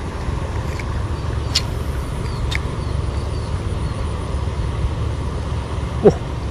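Steady low outdoor rumble with two faint clicks about a second and a half and two and a half seconds in, and a short falling squeak near the end.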